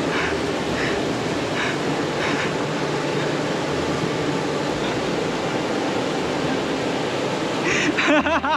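The Beas River, a fast mountain river, rushing steadily over boulders in an even wash of water noise. A brief laugh comes near the end.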